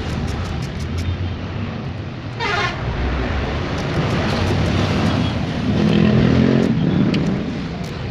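Motor vehicle traffic running past steadily, with a swell in engine sound around six seconds in. About two and a half seconds in, a short high-pitched tone falls quickly in pitch, with faint light clicks scattered through.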